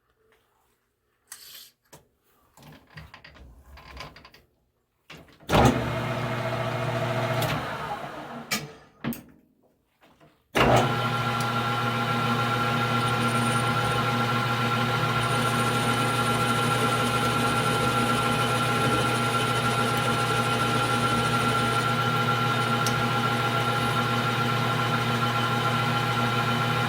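Metal lathe handling clicks, then the lathe motor switched on, running briefly and spinning down. About ten seconds in it starts again suddenly and runs steadily with a hum and a steady gear whine, the spindle turning with no cut yet being taken.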